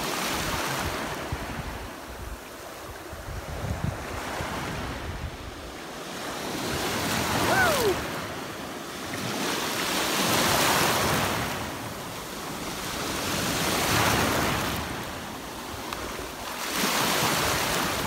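Small Black Sea waves washing in over the shallows at the water's edge, swelling and fading every three to four seconds.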